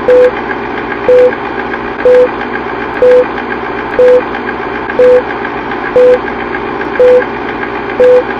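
A short electronic beep at one steady mid pitch, repeating about once a second, over a constant mechanical hum.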